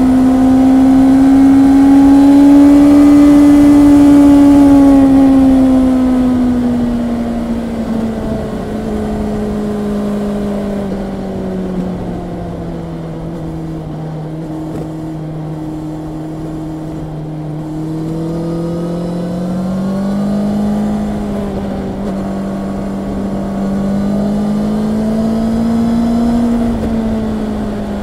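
Honda CB650R's inline-four engine pulling on the move. Its note rises a little and is loudest in the first few seconds, drops steadily as the revs fall, climbs again past the middle and falls off near the end, over a constant low rushing noise.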